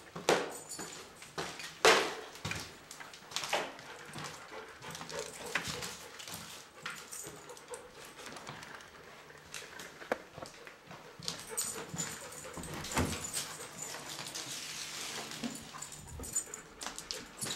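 Dog whimpering, with scattered sharp knocks and scuffs, the loudest in the first few seconds.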